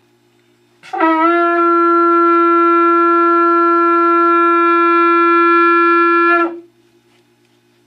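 A shofar blown in one long, loud, steady blast. It starts about a second in with a quick scoop up to its note, holds for about five and a half seconds, and then breaks off.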